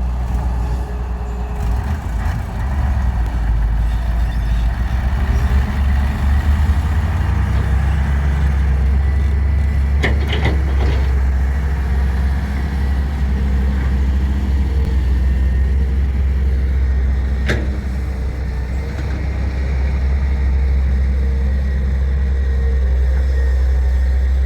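Heavy diesel engine running steadily with a deep hum, with a couple of sharp metal knocks about ten seconds in and another one later on.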